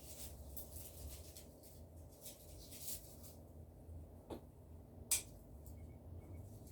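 Faint rustling and scratching of light handling, with a single sharp click about five seconds in, over a low steady hum.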